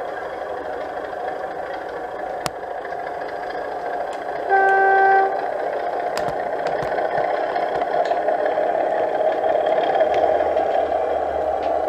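O gauge model diesel locomotive's DCC sound decoder playing engine sound as the loco moves off, with one short single-note horn blast about four and a half seconds in. The engine sound grows louder toward the end, with scattered clicks over it.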